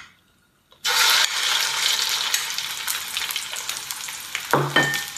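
Shredded pork fillet dropped into hot oil in a wok: a sudden loud sizzle about a second in that keeps frying steadily, with clicks and scrapes of a metal spatula against the wok.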